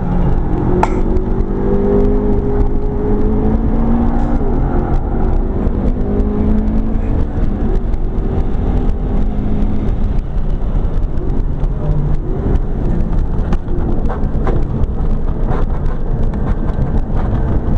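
Inside the cabin of a McLaren 12C at speed: the 3.8-litre twin-turbo V8 runs under load with a held note that sags slightly in pitch, giving way about ten seconds in to steady road and tyre rumble.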